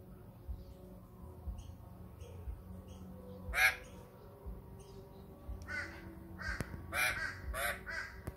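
Australian magpie giving harsh, rasping alarm calls: one about halfway through, then five or so in quick succession near the end. This is scolding at a carpet python in its territory.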